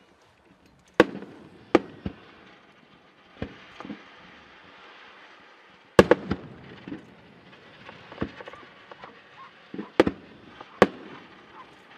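Fireworks display: aerial shells bursting with sharp bangs at irregular intervals, the loudest about a second in, halfway through and twice near the end. Softer pops and a steady hiss fill the gaps between them.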